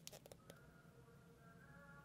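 Near silence: a few faint handling clicks, then quiet background music fading in about half a second in.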